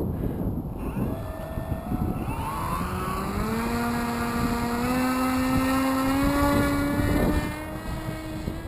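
RC foam airplane's motor and propeller throttling up for takeoff: a whine that rises steadily in pitch over several seconds, with wind rumbling on the microphone.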